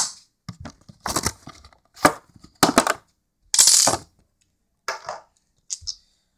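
A series of short clicks and clatters from a clear plastic display stand and a diecast model airliner being handled and fitted together on a wooden tabletop, with a longer scraping rasp a little past halfway.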